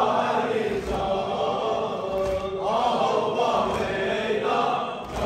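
A congregation chanting a religious invocation together, many voices in long, drawn-out sung phrases with short breaks between them.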